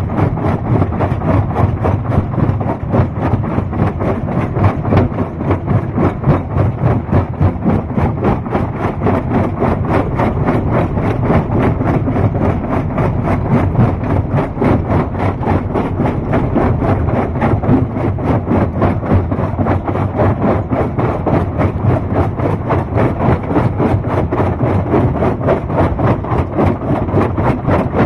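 Rock crushing machine running: a steady, heavy mechanical rumble with a dense, rapid rattling clatter that goes on without change.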